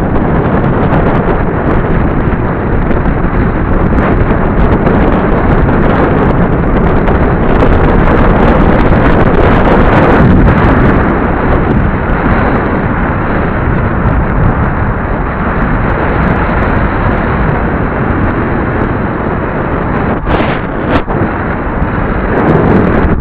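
Loud, steady wind rush buffeting the microphone of a head-worn camera on a road cyclist descending at speed.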